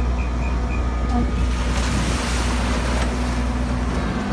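Amphicar 770 entering the lake: its engine runs steadily while a rush of splashing water builds about a second and a half in, peaks, and eases off after about three seconds as the car settles into the water.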